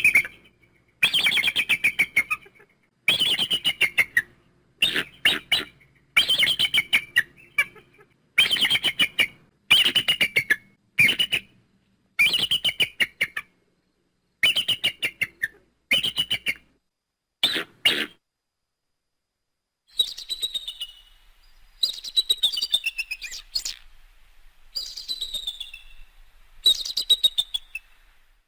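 Eagle calling: repeated series of rapid, high chittering notes, each series falling in pitch, one about every one and a half to two seconds. After a pause about eighteen seconds in, similar falling chittered calls return over a faint low hum.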